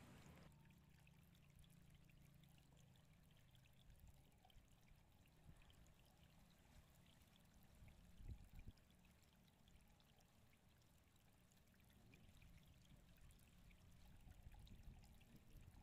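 Near silence: a faint steady low hum and hiss, with a brief low thump about eight seconds in.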